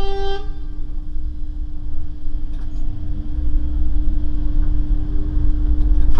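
Tram moving along its rails, heard from the driver's cab: a loud low rumble with a steady hum, getting louder after a few seconds.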